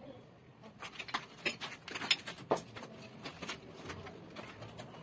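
Irregular clicks and light knocks of white PPR plastic water pipe being gripped and worked by hand inside a broken-out wall, the pipe and its fitting tapping and scraping against the brick and plaster.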